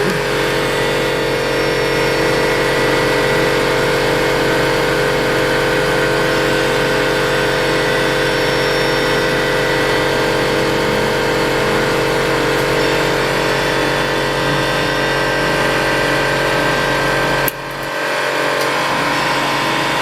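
A machine running with a steady, loud hum made of several held tones. About three-quarters of the way through, its low end drops away suddenly.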